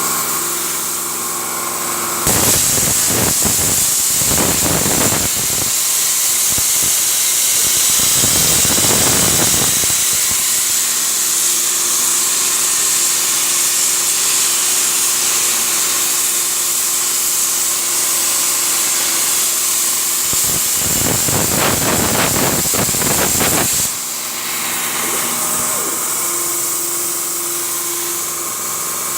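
Air plasma cutter torch cutting 8 mm mild steel at 66 A: a loud, steady hiss that jumps up about two seconds in and drops to a quieter hiss near the end.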